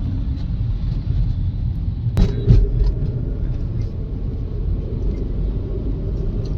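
Mercedes-Benz C200 CGI petrol car driving on a test drive: a steady low rumble of engine and road noise, with a sharp knock about two seconds in and another just after.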